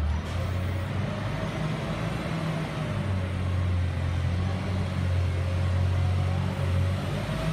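Forklift engine running steadily while it holds a raised load of lumber, its low hum strengthening about three seconds in, with a faint wavering whine above it.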